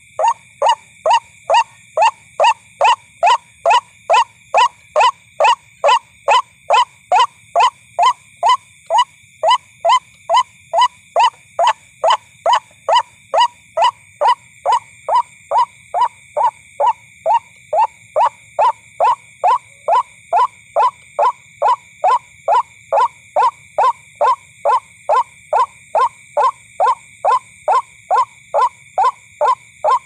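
White-breasted waterhen call, a short falling note repeated very evenly about twice a second without a break, played back as a lure to draw the bird in. A steady high-pitched hum runs underneath.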